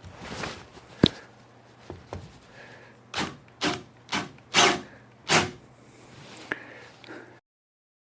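Wood being handled and rubbed: a sharp knock about a second in, then five short rubbing strokes, with the sound cutting off abruptly near the end.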